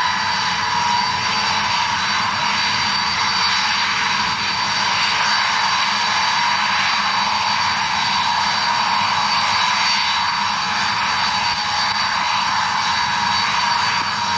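Ilyushin Il-76 cargo jet taxiing, its four turbofan engines running at low power with a steady, high whine over a broad jet rush.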